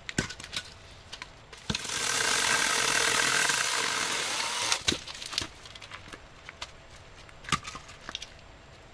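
A small chainsaw cutting through a log for about three seconds, starting and stopping abruptly with no idling before or after. Before and after the cut come several short knocks and clunks of the wood being handled and dropped.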